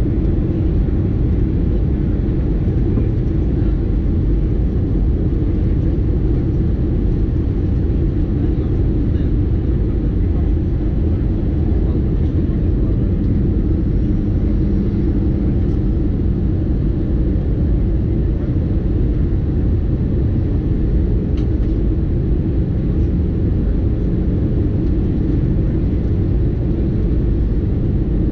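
Steady cabin noise of an Airbus A320-214 in descent: a low, even rumble of its CFM56 engines and the airflow, heard from inside the passenger cabin. A faint low hum joins for a few seconds around the middle.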